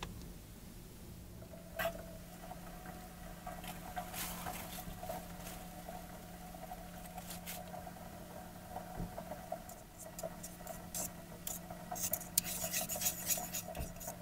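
Metal spoon scraping miso out of a plastic tub and stirring it into a small stainless pot of broth, with scattered scrapes and clinks that grow dense near the end. A steady low hum underneath.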